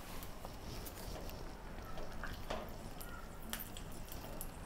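Cashews frying quietly in ghee in a small saucepan over a gas flame, with a few soft clicks and ticks. A spatula starts stirring them near the end.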